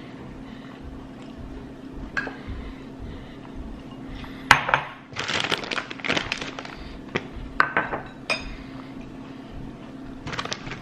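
A metal utensil clinking and scraping against a bowl while elote is mixed and served. The clatter comes in a dense run starting about halfway through, over a steady low hum.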